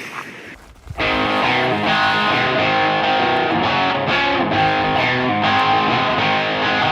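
Background music with guitar, starting abruptly about a second in after a brief stretch of quieter outdoor sound.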